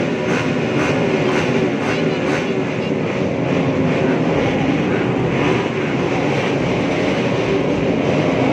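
Small motorcycle engines running together, several wavering engine notes over a steady mechanical din, with an even run of ticks at about two to three a second over the first two seconds.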